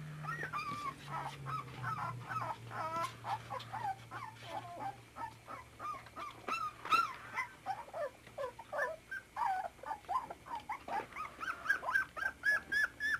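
24-day-old puppies whining: many short, high calls that rise and fall, several a second, settling into a steady run of calls near the end.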